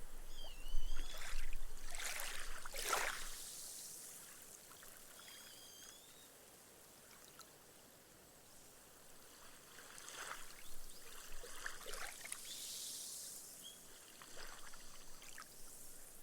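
Small, gentle sea waves washing up onto a sand beach, the foam fizzing as the water soaks into the sand. A louder wash comes two to three seconds in, then a quiet lull, then smaller washes return in the second half.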